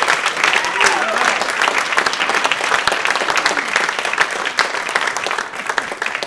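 Audience applauding: dense, steady clapping that thins and stops near the end.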